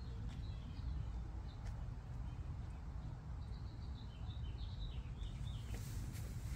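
Outdoor ambience: a steady low rumble with small birds chirping, a quick run of high chirps starting about three and a half seconds in.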